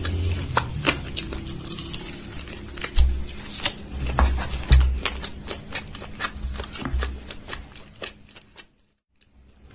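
Close-miked eating: wet mouth clicks and smacks with dull thuds from chewing, many quick clicks throughout. Near the end it drops out briefly before the chewing starts again.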